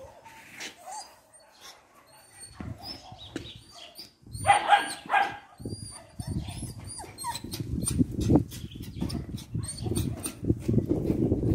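Dogs barking and yelping, with the loudest barks about four seconds in and short high yelps scattered around them. A low rumble runs under the second half.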